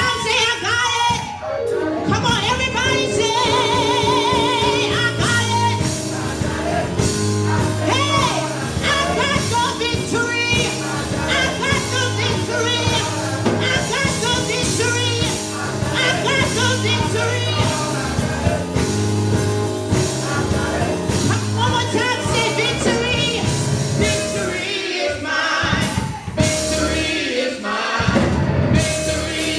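Gospel music with singing, over a steady bass line and drum beat.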